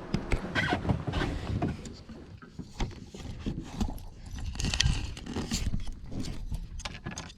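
Kayak being paddled: irregular splashes of the paddle blades in the water and hollow knocks of the paddle against the plastic hull.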